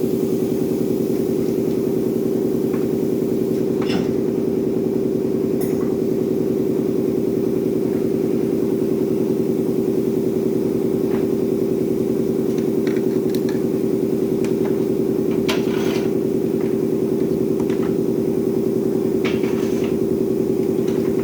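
Running machinery giving a loud, steady low hum with a fast even pulse, with a few light clicks and knocks scattered over it.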